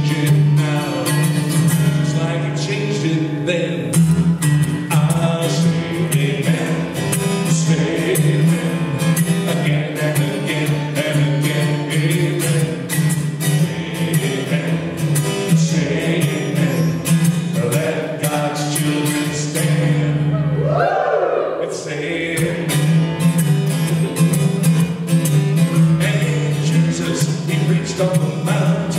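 A man singing a gospel-style song to his own strummed acoustic guitar. About two-thirds of the way through, the guitar drops out briefly under a brief sliding vocal cry.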